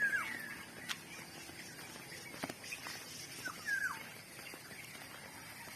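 A bird calling twice, short notes sliding down in pitch, one at the start and one about three and a half seconds in, over faint outdoor ambience with a few light ticks.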